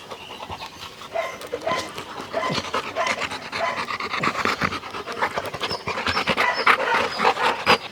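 Labrador retriever panting in quick, repeated breaths.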